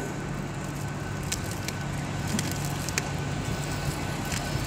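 Great Western Railway Class 800 bi-mode train pulling into the platform on its underfloor diesel engines. A steady low hum with scattered sharp clicks.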